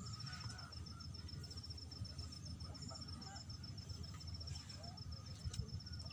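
Outdoor ambience: an insect trilling in fast, even, high-pitched pulses, with a few faint bird chirps over a steady low rumble.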